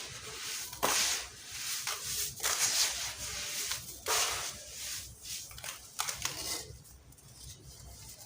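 Crunchy lumps of sand-cement being crushed and crumbling, with sharp cracks about a second in and again about four seconds in and gritty crackling between them, thinning out near the end.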